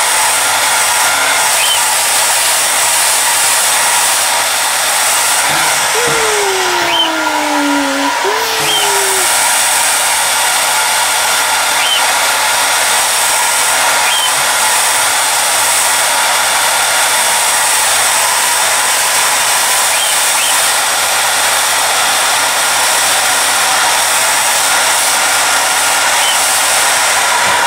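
Hair dryer blowing steadily, a loud, even rush of air. About six to eight seconds in, two short tones slide down in pitch over it, and faint brief chirps come now and then.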